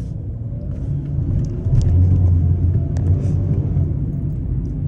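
2012 Hyundai Accent driving, with a steady low rumble of engine and road noise heard inside the cabin. The rumble swells a little about two seconds in, and there are a couple of short sharp knocks, around two and three seconds in.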